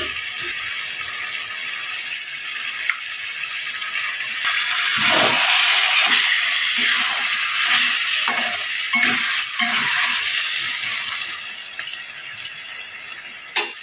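Spinach and vegetable curry bubbling and sizzling at the boil in a stainless steel kadai. From about five to ten seconds in, a metal spatula stirs it, scraping and knocking against the pan.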